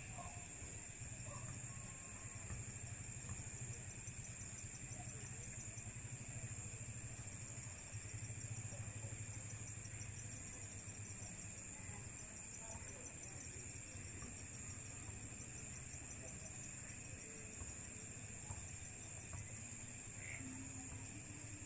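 Night insects calling in chorus: several steady high trills, with one insect's rapid chirping coming in short runs, over a low steady hum.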